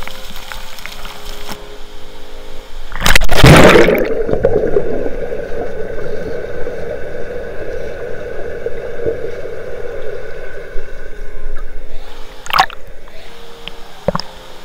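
Pool water splashing as the camera plunges underwater about three seconds in, followed by a long muffled underwater rush and gurgle with the high end cut away. Two short splashes near the end as it breaks the surface again.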